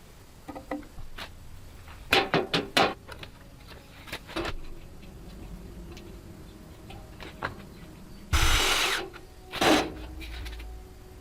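Repair work with hand tools on objects: scattered clicks and sharp knocks, a quick cluster of louder knocks about two seconds in, and a short burst of rasping noise near the end, followed by another knock.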